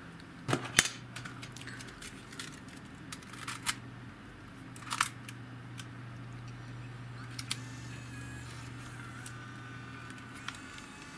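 Plastic and metal clicks and snaps of a Sony DCR-PC100E mini DV camcorder being handled, its cassette compartment mechanism shut and its LCD screen flipped open. The sharpest snap comes just under a second in, with scattered lighter clicks after it and a faint high whine late on.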